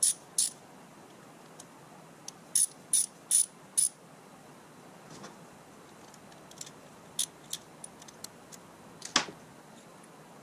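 Ratchet head of a socket wrench clicking as its square drive is turned by hand: sharp metallic clicks, with a run of four evenly spaced ones, then scattered lighter clicks and one sharper metal click about nine seconds in.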